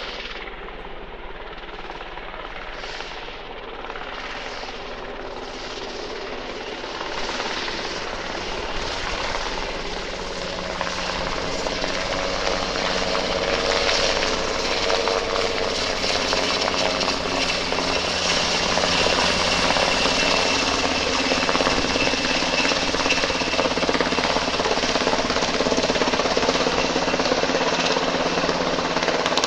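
Black Hawk twin-turbine helicopter flying close, its rotor chopping over a dense engine noise that grows steadily louder as it nears, with a high turbine whine coming in about halfway through.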